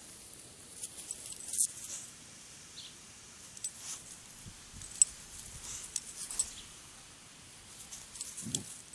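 A dog moving and sniffing through grass close by: soft rustling with scattered small clicks and clinks, and a brief low sound near the end.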